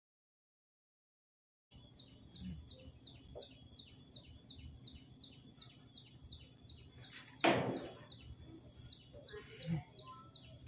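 Faint outdoor background with a small bird's high, short chirp repeated steadily about two to three times a second, beginning about two seconds in after a moment of dead silence. A brief loud rush of noise cuts through about seven and a half seconds in.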